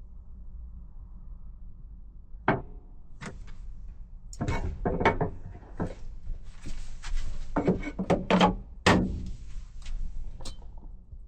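A run of irregular wooden knocks and clunks, like pieces of cabinet wood being handled and set in place, thickest in the middle, with the last one just before the end.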